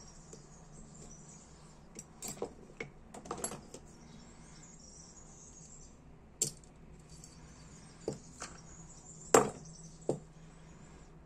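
Small metal hand tools, a screwdriver and pliers, clicking and tapping against a Dupont lighter's metal body and parts in a scattered run of sharp clinks, the loudest near the end. A steady high-pitched insect chirr runs underneath.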